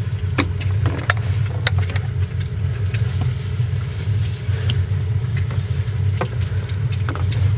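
A motor running with a steady low hum, with short clicks and spray hisses scattered over it.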